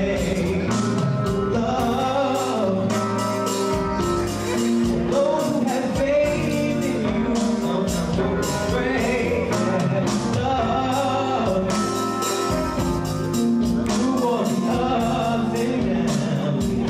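A male vocalist singing into a handheld microphone over music with a steady beat.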